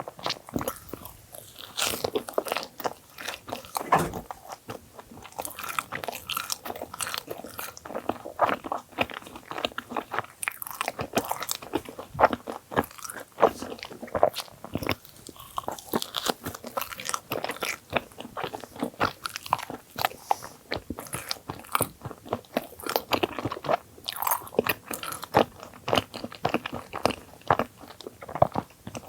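A person eating thick filled bagels close to the microphone: crisp bites and crunches come irregularly, several a second, over continuous chewing.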